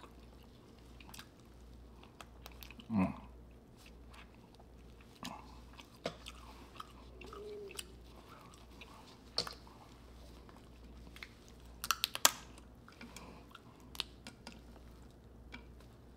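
Close-miked chewing and biting of seafood boil food: wet mouth sounds with scattered sharp clicks and crunches, and a short cluster of them about twelve seconds in.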